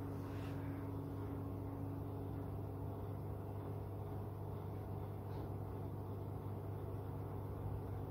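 Steady low machine hum with a faint even hiss.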